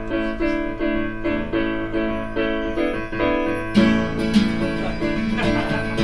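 Band music: an electric keyboard and an acoustic guitar play a repeated rhythmic figure, and the sound grows fuller with a sharp, louder entry about four seconds in.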